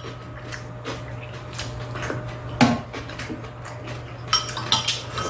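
Metal spoons clinking and scraping against bowls, scattered irregular clinks with one louder clack about two and a half seconds in, over a steady low hum.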